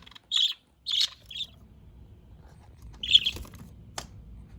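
Pet budgerigar giving short high chirps, four in all, spaced unevenly, with a single sharp click near the end.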